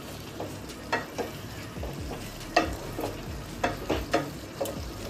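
A spatula stirring a thick vegetable curry in a non-stick kadai, scraping and knocking against the pan at an irregular rhythm of about one or two strokes a second.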